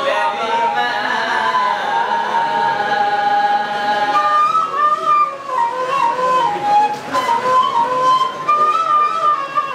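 Devotional inshad: a solo voice chanting a slow, ornamented melody with long held notes that waver and glide between pitches.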